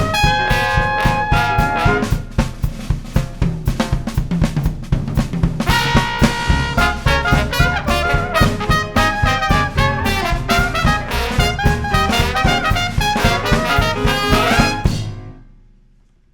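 Traditional New Orleans jazz band (trumpet, clarinet, trombone, piano, string bass and drum kit) playing the final bars of a tune in a loud, busy ensemble. The horns drop back for a few seconds, then the full band comes back in. The piece ends about a second before the close and rings away to silence.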